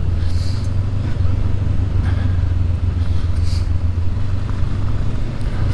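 Honda CB500X's parallel-twin engine running at a steady low pitch as the motorcycle rides along.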